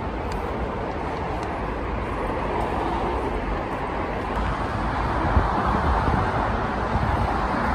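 Steady rush of road traffic from a busy multi-lane road below.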